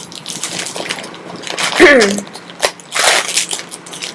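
A tightly sealed package being pulled and torn open, its wrapping crackling and crinkling, with a short grunt of effort about two seconds in.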